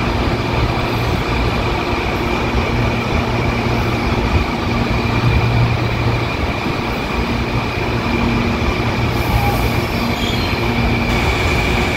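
Electric commuter trains running past on the station tracks: a steady sound of wheels on rail and running gear, with a constant high whine over it.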